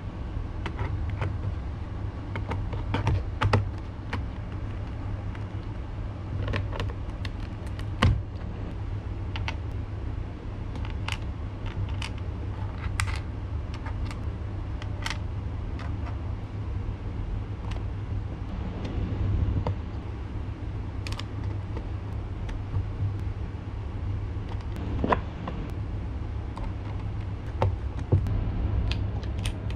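Scattered light clicks and taps of hands seating an auto-darkening filter cartridge in a plastic welding helmet shell and handling its small screws and washers, a few sharper knocks among them, over a steady low hum.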